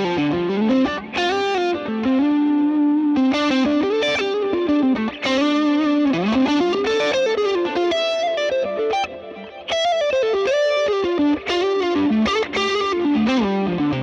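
Electric guitar played through a Fractal Audio FM9 modeller: the Texas Star Clean amp model pushed by an RC Boost model and a second drive model, giving a lightly overdriven lead tone. A melodic single-note line with several string bends.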